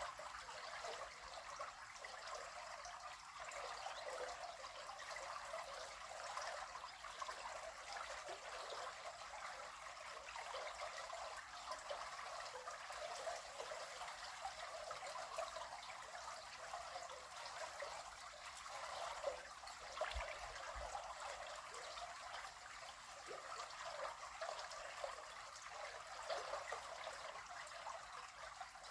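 River water flowing and trickling, a steady rushing sound with small splashy flickers.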